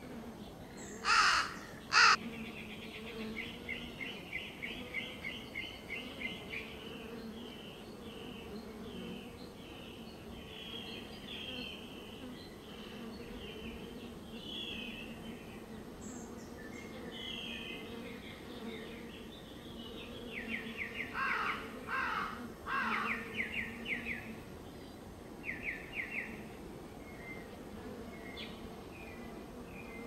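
Honey bees buzzing steadily around flowers, a low, continuous hum. Crows caw twice loudly about a second in and three more times around the middle. A small songbird trills rapidly in between.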